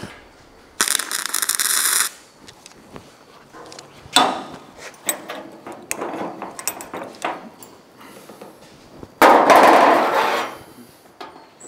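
Metalworking on a car's steel body panels: a body hammer and dolly knocking on the sheet steel in scattered taps. Two loud, harsh hissing bursts of just over a second each come near the start and about three-quarters of the way through.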